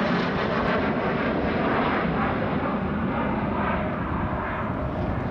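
Jet fighter's engine noise: a loud, steady rush with a faint whine in it.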